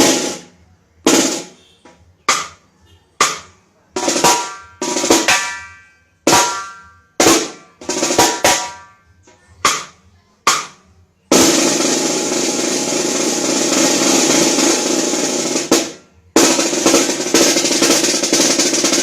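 Snare drum tuned for reggae, played as a demonstration of its tuning. About fifteen separate strikes come roughly once a second, several ringing on with a pitched overtone. They are followed by a roll of about four and a half seconds and then a second roll.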